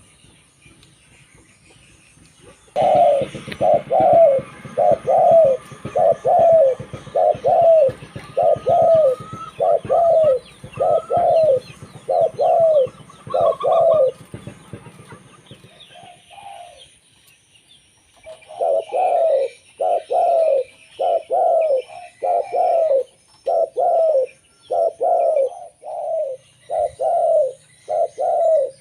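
Zebra dove (local perkutut) singing its call: a long run of short, quick cooing notes, each dropping slightly in pitch, about one and a half notes a second, with a pause of a few seconds around the middle before the song resumes.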